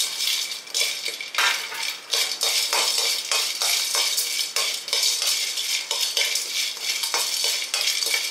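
A metal ladle scraping and clinking against a metal kadai while whole spices are stirred in dry-roasting: cinnamon sticks, star anise and cloves rattle across the bare pan in quick, irregular strokes.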